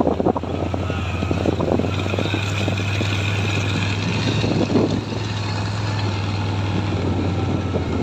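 Vehicle engine running steadily with a low hum, heard from aboard, with irregular rattles and knocks as the vehicle drives over a rough, muddy dirt track.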